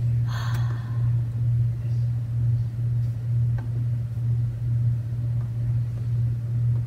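A steady low hum at one pitch, with a brief rustle or scrape about half a second in and a faint tick near the middle.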